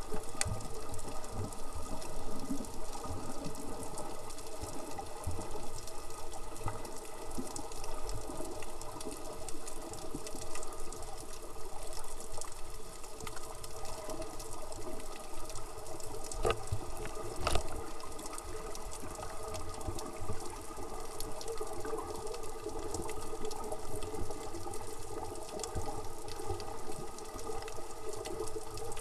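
Underwater sound: a steady rushing of water with a constant mechanical drone of several held tones underneath. Two sharp knocks come about sixteen and seventeen seconds in.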